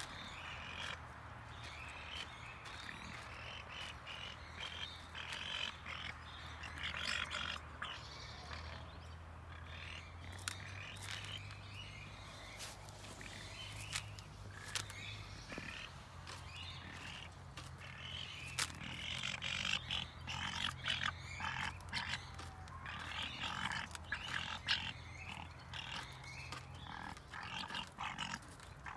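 Young grey crowned cranes pecking grain from a plastic bucket: a run of quick sharp clicks and rattles as their bills strike the seed and the bucket, busier in the second half, over a steady low hum.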